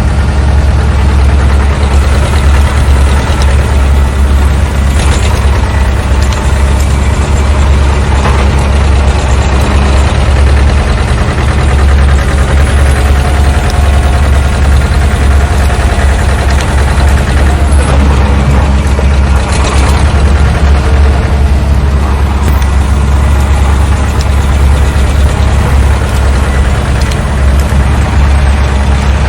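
Heavy diesel engine running steadily with a deep, continuous low rumble, with a few faint knocks now and then.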